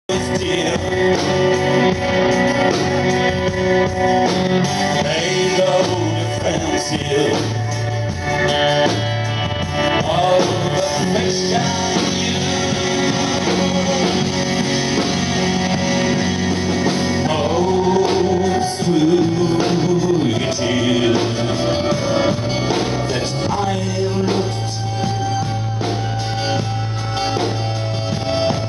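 Live amplified rock band: a man singing lead over strummed acoustic guitar and electric guitar, with sustained low bass notes underneath.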